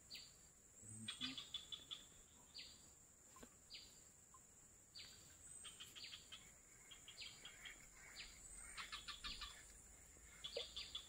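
Faint birds calling: short downward-sliding whistles about once a second, mixed with several quick chattering trills, over a steady high insect drone.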